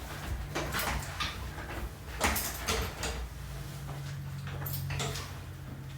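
Padded chiropractic table and patient shifting position: a handful of short knocks and clicks, with a low steady hum from about three seconds in.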